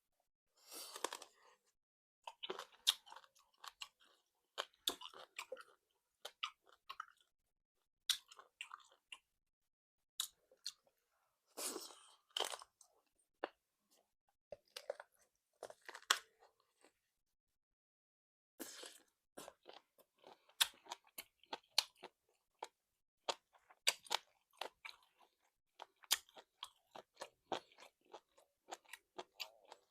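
Close-miked chewing of salt-baked chicken: crisp crackles and wet mouth clicks in bouts, with short pauses between, the longest about two seconds midway.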